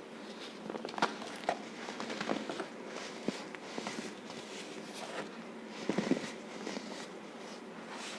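A baking soda and cornstarch mixture being crushed, crunching and squeaking in an irregular run of soft crackles, with a few sharper crackles about a second in and around six seconds.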